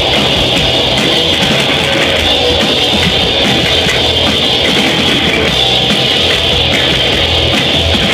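Live rock band playing loud and steady: electric guitars over a full drum kit.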